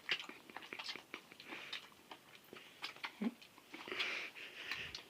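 People chewing and sucking on spicy chicken feet: scattered small wet clicks and lip smacks, with two stretches of breathy hissing in between and a brief murmur about three seconds in.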